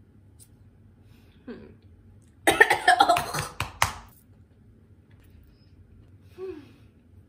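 A woman coughing in a quick burst of about five coughs a little over two seconds in, on a mouthful of food that went down the wrong way. A short throat-clearing noise follows near the end.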